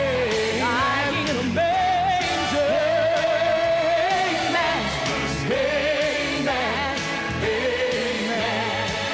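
Live gospel music: a solo singer holding long, wavering notes and sliding between pitches, over a full band.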